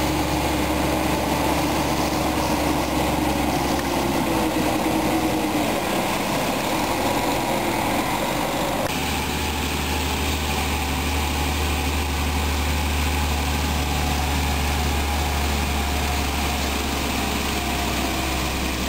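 Diesel engines of farm tractors and a lorry running steadily while a tractor helps a tipper-trailer lorry out of mud. The sound changes abruptly about nine seconds in, to a steadier engine drone.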